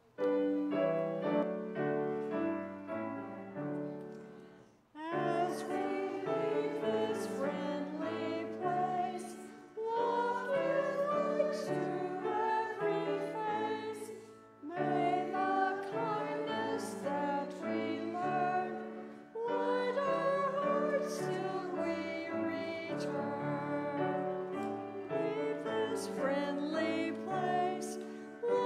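Singing with grand piano accompaniment, in phrases of about five seconds with short breaths between them.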